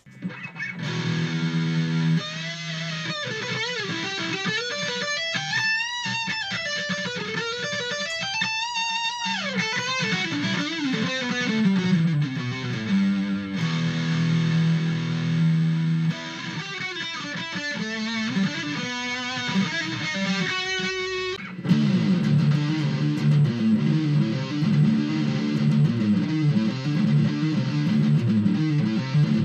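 Aria Pro Blitz LP-style electric guitar played through a Twinote Boogie Distortion pedal into a Marshall mini amp: lead lines with bent and vibrato notes, then, about two-thirds of the way in, a sudden change to a denser, steadier part with heavy low notes.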